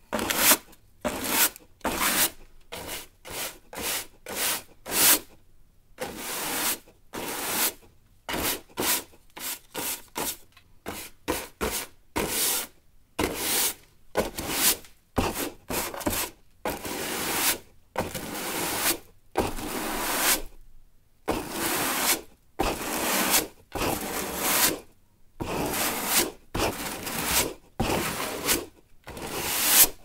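Broom sweeping: repeated brushing strokes with short gaps between them. The strokes are short and quick, about two a second, for the first half, then longer and fuller.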